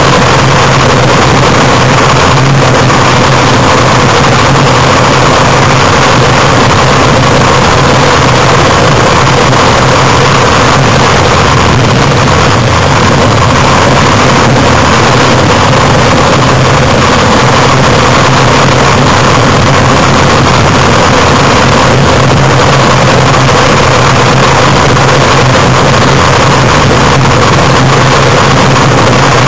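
Loud, steady rumble of a downhill gravity cart (cariolo) on ball-bearing wheels rolling fast over coarse asphalt, heard from on board the cart. The pitch holds steady with no rise and fall through the bend.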